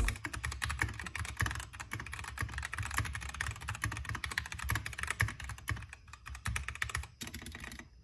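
Fast typing on an Epomaker EP84 mechanical keyboard with Gateron red linear switches: a dense, even run of key clacks that stops shortly before the end.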